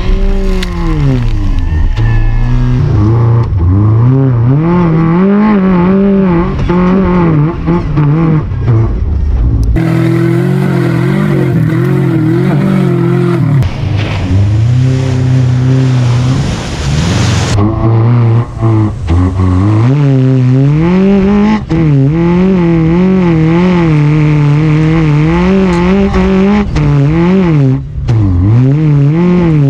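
1999 Subaru Forester's flat-four engine revving up and easing off over and over as it is driven off-road under load, its pitch rising and falling continuously. The sound changes abruptly twice partway through.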